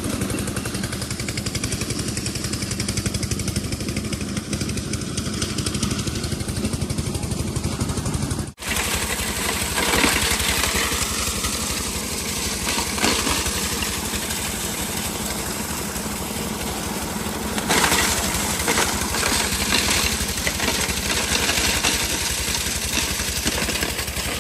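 Small diesel engine running steadily with a fast, even chugging, with a few louder clatters of work over it.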